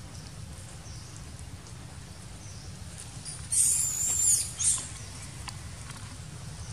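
A very high-pitched, wavering squeal lasting about a second, midway through, followed at once by a shorter one. Faint ticks and rustles are scattered around them.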